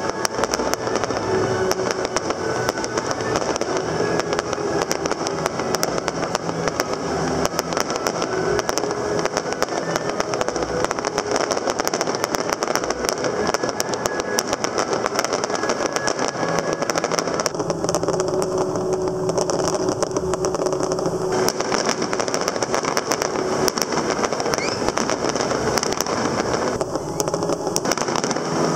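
Fireworks display: a dense, continuous crackle and popping of bursting shells and crackling stars. A steady several-toned sound joins in for about three seconds about two-thirds of the way in, and again briefly near the end.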